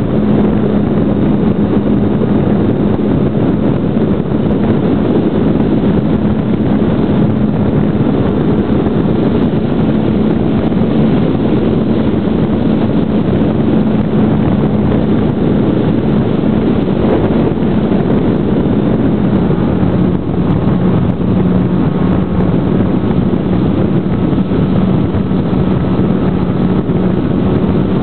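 Brushless electric motor and propeller of a GWS Slow Stick RC plane in flight, heard from on board as a steady buzzing drone over rushing wind on the microphone. The pitch drops slightly about twenty seconds in, as the throttle is eased.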